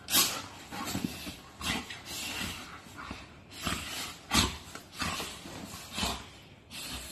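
Two golden retrievers play-fighting, giving a string of short, rough play-growls and huffs at irregular intervals about a second apart, the loudest just after the start and about four and a half seconds in.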